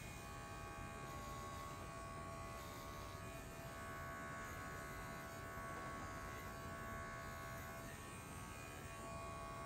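Electric pet hair clippers running with a steady buzz, shaving a small square patch of fur on a Scottish Deerhound's chest wall.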